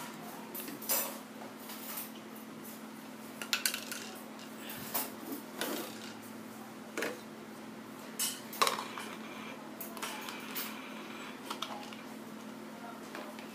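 Plastic toy pots, pans and utensils clattering and clicking irregularly as a small child handles a toy kitchen set, with several louder knocks among lighter clinks.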